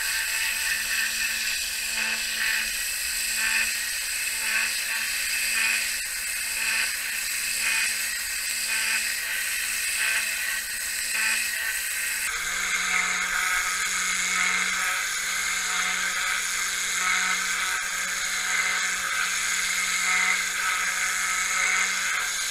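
High-pressure water jet from a pressure-washer lance blasting moss off roof tiles: a steady spray hiss over the steady drone of the pressure-washer motor, which drops slightly in pitch about halfway through.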